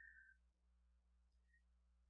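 Near silence: room tone, with only a faint, brief thin tone near the start.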